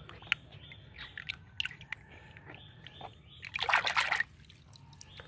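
A hand sloshing and splashing about in a tub of soapy water, with scattered small splashes and a louder burst of splashing, under a second long, past the middle.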